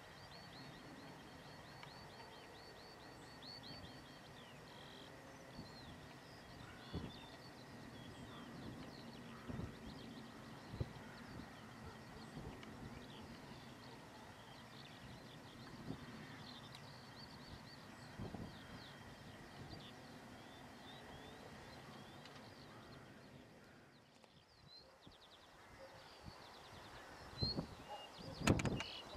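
Small birds chirping and singing over the faint low rumble of a diesel-hauled train pulling away into the distance. The rumble fades out a few seconds before the end, and a few louder knocks follow near the end.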